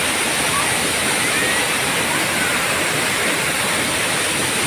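Waterfall rushing steadily, swollen with rainwater into a heavy, muddy flow.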